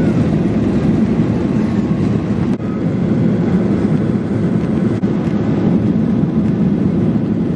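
Jet airliner cabin noise: the steady, loud rumble of the engines and rushing air heard from a window seat over the wing while the plane climbs through cloud.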